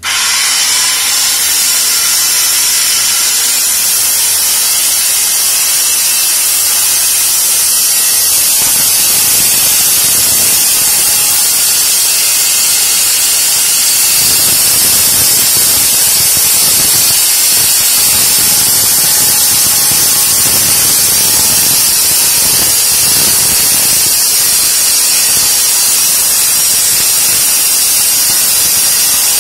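DeWalt corded circular saw running and cutting into hardwood floorboards, a loud steady noise heavy in the highs that fills out lower from about halfway through. The saw is cutting out water-damaged boards along a marked outline.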